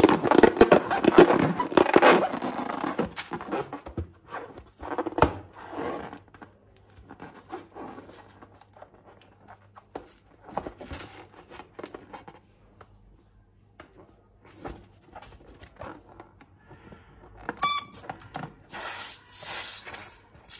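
Slime and a rubber balloon being handled: squishing and crackling, loudest in the first few seconds, then scattered crackles and clicks. There is a short squeak near the end, then a rustle.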